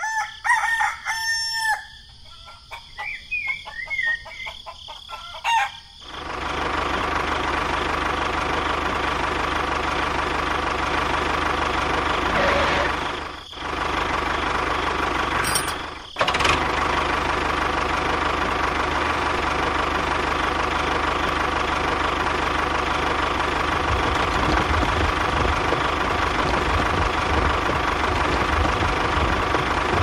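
A rooster crows several times. About six seconds in, a steady engine sound takes over and keeps running, with two brief breaks near the middle.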